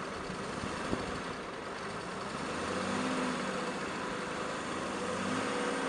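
Volvo C303 off-road vehicle's engine running, its revs rising briefly about halfway through and again near the end, growing louder toward the end.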